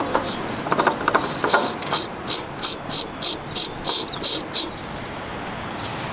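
A spin-on oil filter being screwed by hand onto its threaded mount on a Kubota M59 tractor engine: a few light clicks as it engages, then a run of about ten short scraping rasps, roughly three a second, as the hand twists the canister round. The rasps stop suddenly near the end.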